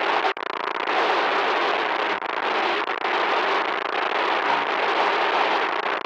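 Loud static noise: a dense, crackling hiss, broken by a brief dropout about a third of a second in.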